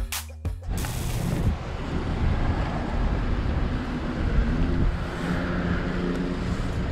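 Car rolling slowly, a steady low rumble of engine and tyres heard from inside the cabin through an open window. The music cuts off within the first second, with a short hiss just after.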